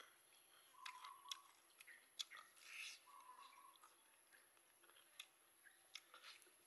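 Faint close-up chewing and lip-smacking of a person eating a crispy fried chicken leg, with scattered wet mouth clicks, the sharpest about two seconds in.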